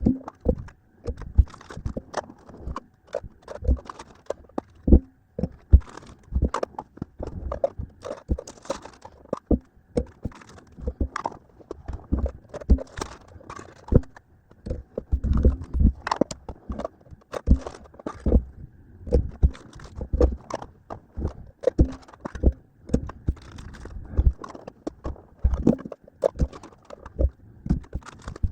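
Small metal card tins being handled and pried open in quick succession: a rapid, irregular run of clicks, clacks and knocks, with some scraping.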